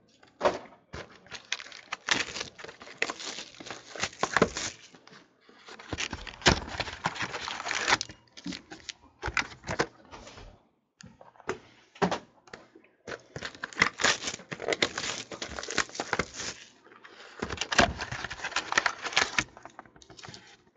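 Foil wrappers of 2014 Panini Crown Royale card packs crinkling and tearing as the packs are handled and opened, with cardboard boxes and cards clicking and sliding. It comes in irregular bursts with short pauses between them.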